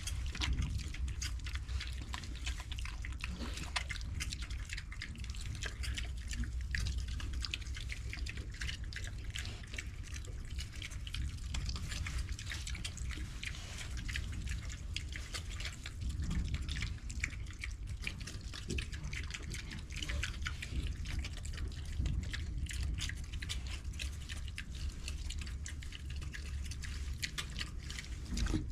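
Idaho Pasture piglets eating and drinking: a dense, irregular run of wet smacking and clicking, over a steady low hum.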